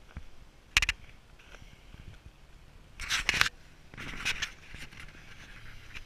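A few short scraping crunches close to the microphone: a sharp one about a second in, then louder clusters around three and four seconds in.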